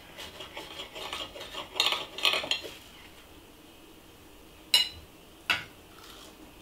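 Knife and fork sawing through a piece of fried toast with an egg set in it, on a plate: a few seconds of scraping and rasping cutlery. Then two sharp clicks of cutlery on the plate, a little over half a second apart.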